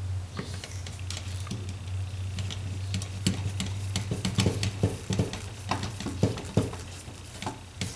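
Screwdriver turning the fillister-head screws that join the upper and lower halves of a cast-metal Tillotson Model X carburetor: small metallic clicks and scrapes, coming thicker after about three seconds, over a steady low hum.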